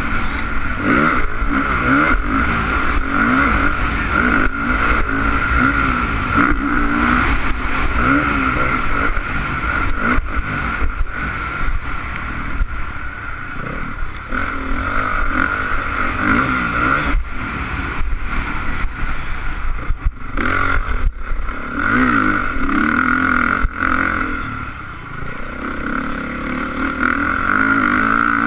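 Honda CRF450 motocross bike's single-cylinder four-stroke engine revving up and down over and over as the rider works the throttle, picked up by a helmet-mounted camera with wind noise and occasional knocks. The engine briefly backs off twice near the end.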